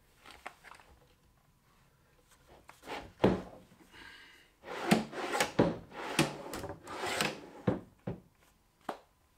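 Plywood drawer on metal full-extension slides being pushed shut and pulled open several times, rolling along the slides and knocking against the cabinet as it closes. The loudest knock comes about three seconds in, with a cluster of further slides and knocks from about five to eight seconds.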